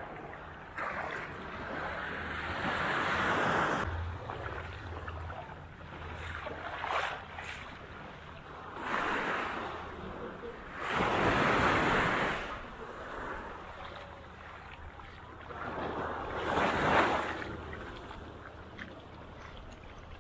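Small waves breaking and washing up the beach, the surf swelling and fading every few seconds.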